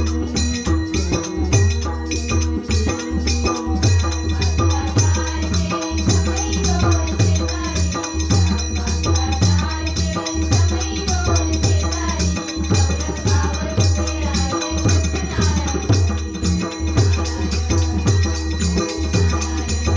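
Women's bhajan group singing a Marathi devotional song, with a steady beat of jingling hand percussion and a sustained low instrumental accompaniment.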